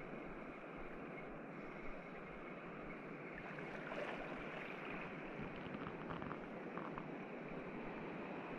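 Steady wash of shallow sea water and light surf close around the wading angler, with no speech.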